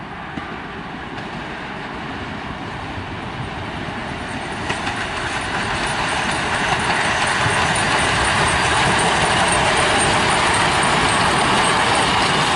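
Finnish Hv3 995 wood-fired steam locomotive and its passenger train running along the track, growing steadily louder as it approaches and then levelling off as it passes close by.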